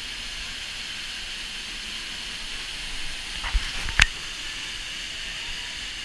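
Waterfall pouring into a rocky plunge pool: a steady hiss of falling water, broken by two short knocks about three and a half and four seconds in.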